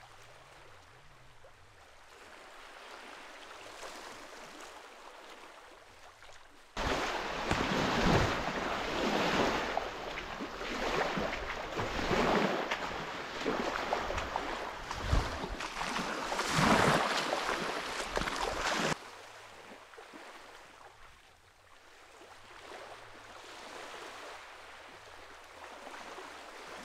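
Small waves washing on a sandy shore, with wind. From about seven seconds in to about nineteen seconds in, a much louder, surging rush of wind and surf on the microphone, starting and stopping abruptly.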